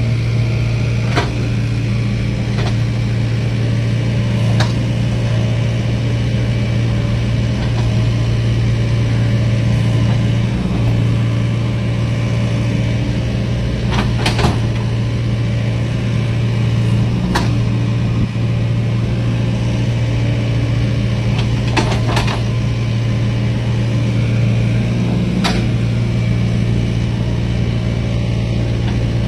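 Large diesel engine running steadily at a constant speed, with a few short sharp knocks scattered through it, some in close pairs.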